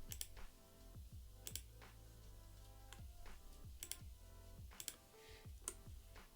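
Soft background music with steady low notes and a light beat, with several computer mouse clicks scattered through it.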